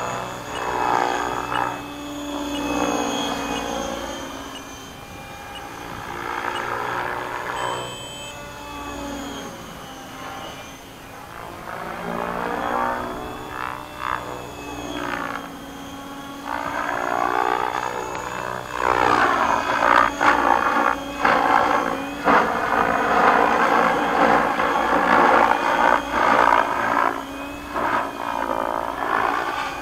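Align T-Rex 700X electric RC helicopter in 3D flight at a low 1700 RPM head speed: main rotor blade noise over the brushless motor's whine, swelling and fading as it manoeuvres. It turns louder and more pulsing about two-thirds of the way through.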